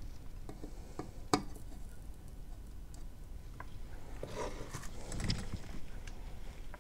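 Quiet workbench handling as a soldering iron is worked along and lifted off a row of header pins: a few small clicks and taps, the sharpest about a second and a half in, then a soft brushing sound around five seconds in.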